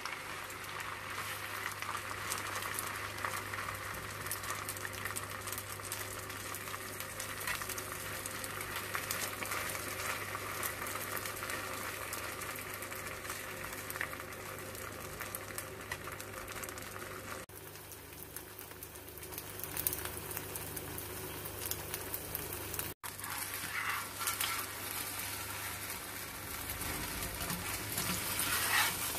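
Grated-potato pancake batter sizzling as it fries in hot oil in a nonstick frying pan, a steady crackling hiss.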